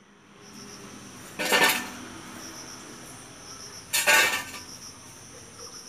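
A bonti blade cutting into a whole pangas catfish: two short cuts about two and a half seconds apart. The blade is blunt, so the cutting is hard going. Insects call steadily in the background.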